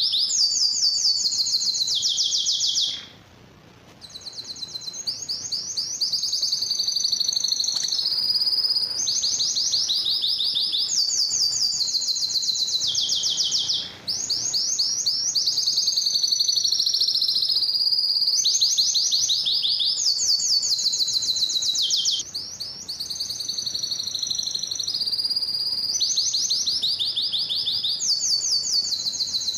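A male canary singing a long song of fast trills, each run of rapidly repeated high notes giving way to the next, with a few short pauses. It is the courtship song used to stimulate canaries for breeding.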